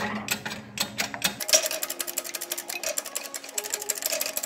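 A press being worked to compress a downhill bicycle fork's stiff coil spring and push the rod bolt through, making rapid, steady mechanical clicking.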